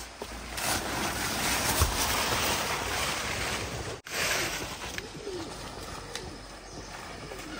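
A bundle of leafy branches rustling and brushing as it is carried through undergrowth, cutting off abruptly about four seconds in. After that, quieter outdoor ambience with a dove cooing a few times.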